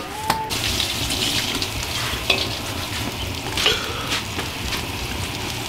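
Hands squeezing and rubbing raw pig intestines in an aluminium pot, starting about half a second in: wet squishing and crackling, with a few light knocks against the pot.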